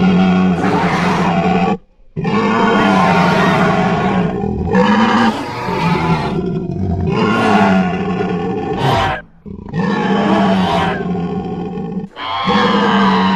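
Layered creature sound effects: long, loud monster roars and growls with a steady low pitch that bends up and down, broken by short pauses about two seconds in, about nine seconds in and near the end.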